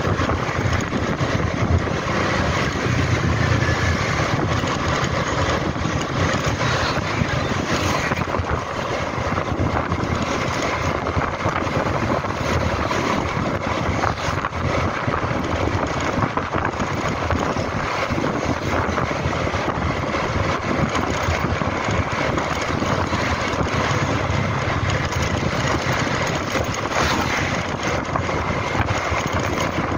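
Motor scooter engine running while riding along a street, with wind noise on the handlebar-mounted camera's microphone.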